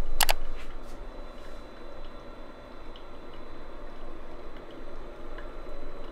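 Ninja drip coffee maker brewing: water gurgling and dripping steadily, after a sharp click right at the start.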